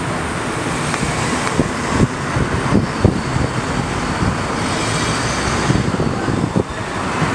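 Road traffic: cars driving past, a steady rush of tyre and engine noise with a few low thumps.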